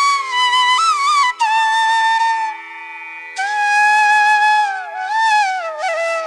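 Background music: a flute playing a slow melody with sliding, ornamented notes over a steady drone.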